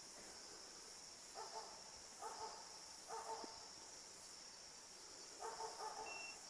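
Faint barking from a pig-hunting dog: four short bouts of barks, typical of a dog baying a pig it has stopped. A steady high insect buzz runs underneath.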